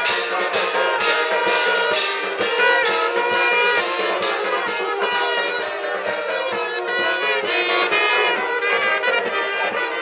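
Brass band music, trumpets and trombones playing a tune over a steady drumbeat.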